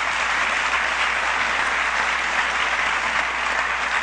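Audience applauding steadily, a dense clapping that swelled just before and holds level.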